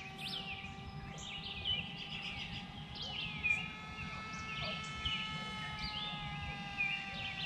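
Birds chirping and calling in short rising and falling notes, over a faint steady whine that drifts slowly in pitch, from the electric motor and propeller of a small RC flying wing in the air.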